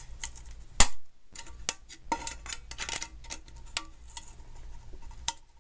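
Pliers clicking and scraping against an aluminum mess-kit pot and its handle tabs as the tabs are bent and worked loose: a run of irregular small metallic clicks, with one sharp click a little under a second in the loudest.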